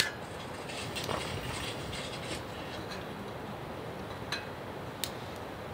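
Snow Peak high-output gas burner running under a pot of water with a steady hiss, and a few light metallic clicks of the pot and its handles, the sharpest right at the start and two more near the end.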